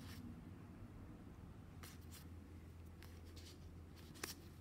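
Faint handling of a fan of cardstock game cards: a few soft clicks and rustles as the cards shift in the hand, over a steady low hum.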